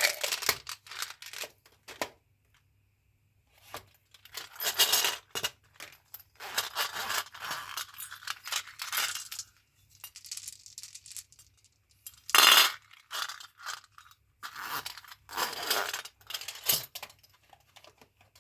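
Hands handling candy packaging: irregular bursts of crinkling and rustling mixed with small hard clicks and clinks, with short pauses between. The loudest is a brief sharp burst about twelve seconds in.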